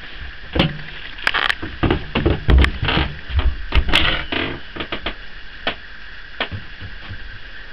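Clicks and knocks of a cabin door being handled and opened by its metal handle, mixed with handheld camera handling noise. The knocks come thick and fast for the first few seconds, loudest about halfway, then thin out to a few single clicks.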